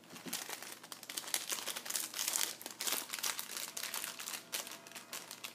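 Tissue paper and clear plastic gift wrapping crumpled and crinkled by hand as items are unwrapped: a dense, continuous crackle of many small sharp crinkles.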